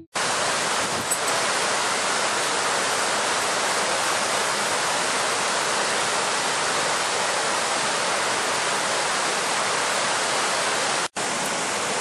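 River waterfall: white water pouring over rock ledges with a steady, loud rushing sound. The sound cuts out for an instant about eleven seconds in and then resumes slightly quieter from another cascade.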